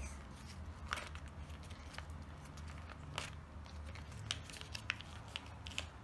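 A sheet of paper being folded and creased by hand on a plastic-covered table: scattered faint crinkles and sharp little ticks as the paper is pressed flat, over a steady low hum.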